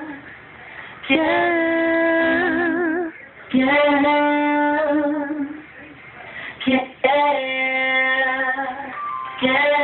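A high singing voice holding long, steady notes, four phrases of about two seconds each, with short breaks between them and a vibrato wobble as each note ends.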